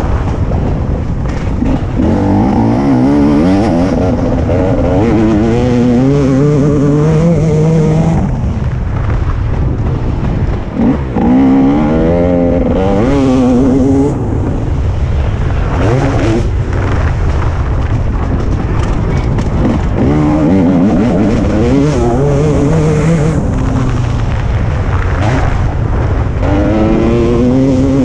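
TM 300 two-stroke motocross bike engine under hard riding: the revs climb in pitch again and again, then drop off as the rider shifts or backs off, over a constant low rumble.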